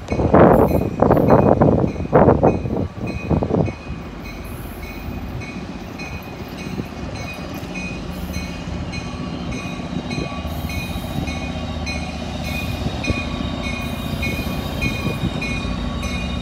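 Train running past with a steady low rumble. There are loud, noisy bursts in the first few seconds, and a short high ding repeats evenly through the rest.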